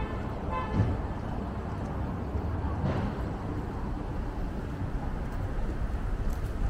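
City street ambience: a steady low rumble of passing traffic, with a brief pitched sound under a second in and a short sharper noise about three seconds in.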